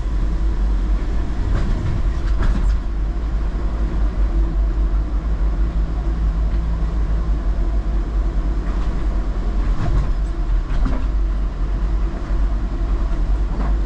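Steady low rumble of a car rolling slowly through the carriages of a Eurotunnel car shuttle train. A few short knocks and clicks come through, a couple in the first seconds, a cluster around the middle and again near the end.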